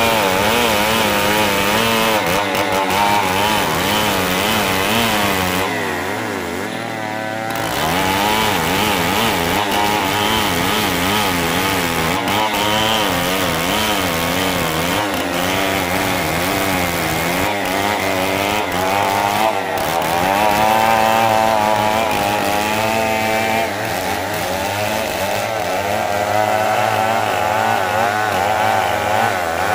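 Two-stroke chainsaw ripping a damar log lengthwise, the engine running under load with its pitch wavering as the bar bites. About six seconds in it briefly drops in pitch and level, then comes back up to full cutting speed.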